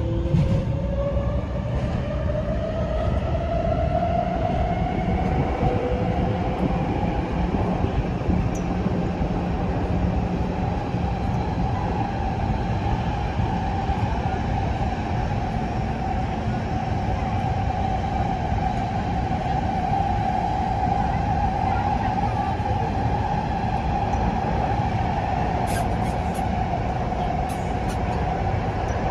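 Inside a Taipei Metro C341 train car: the traction motors' whine rises in pitch over the first few seconds as the train accelerates, then holds steady at running speed. Underneath is a constant rumble of the wheels on the rails.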